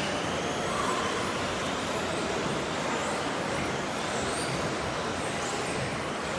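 Several 1/10-scale electric off-road RC buggies racing: a steady noisy wash with the faint whine of the motors rising and falling as the cars accelerate and brake.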